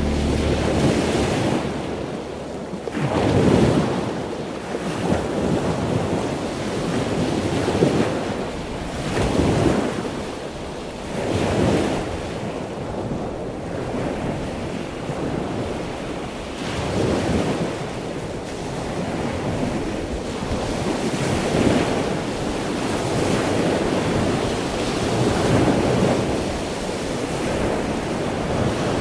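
Waves washing onto a beach, with wind buffeting the microphone; the noise swells and falls every few seconds.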